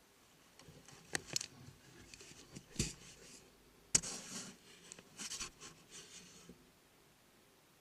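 Scattered clicks, taps and short scraping sounds of something being handled close to the microphone, the sharpest click about four seconds in.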